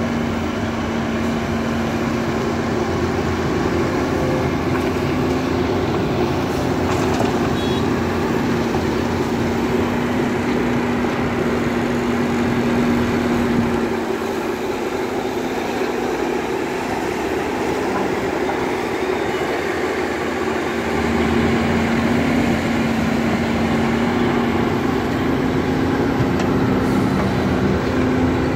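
Volvo EC210B crawler excavator's diesel engine running steadily under working load, a constant humming drone that eases off for several seconds around the middle and picks up again.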